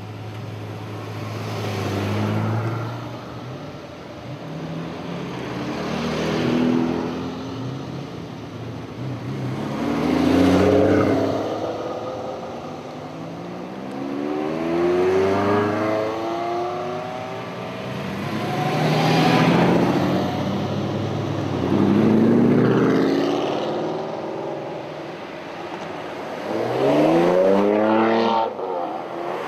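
Supercars, among them a Ferrari F40, a Ferrari 360 and a Porsche Carrera GT, driving past one after another, about seven in turn. Each engine revs and its pitch rises and falls as the car goes by.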